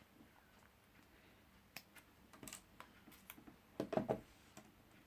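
Light, scattered clicks and taps of an iPhone being handled, with a quick cluster of them about four seconds in.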